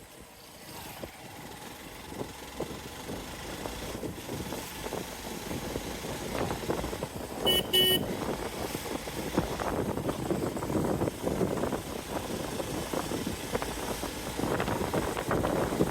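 Hero XPulse 200 Pro's single-cylinder engine running on the move, with rough wind and road noise, growing louder over the first half. About halfway through, a vehicle horn beeps twice briefly.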